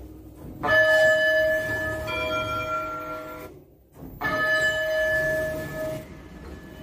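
Elevator chimes of a 2015 Schindler 3300 AP. A two-tone ding-dong, a high note followed by a lower one, rings out. After a short break a single high chime sounds.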